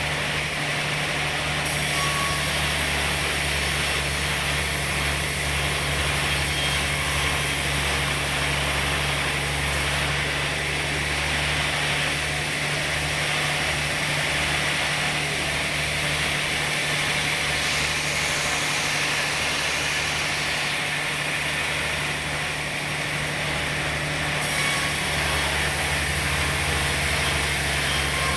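Sawmill machinery running steadily: a constant low engine hum with a hiss on top, the hiss changing a few times.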